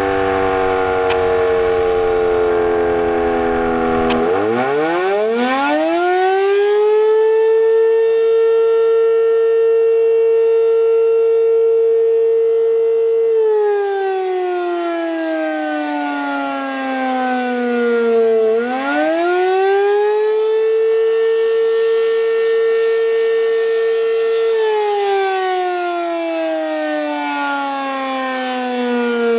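American Signal RM-127 civil defense warning siren sounding the wavering Attack signal. The pitch winds down over the first few seconds, then climbs steeply to a high held tone and holds it for several seconds. It slides down, climbs back up, holds again and slides down once more near the end.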